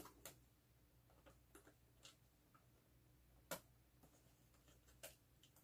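Near silence: room tone with a handful of faint, scattered clicks from objects being handled, the clearest about three and a half seconds in.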